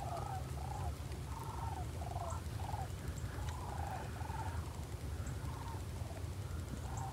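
Sandhill cranes calling from a large flock high overhead: many repeated, overlapping rattling calls, heard at a distance, over a steady low rumble.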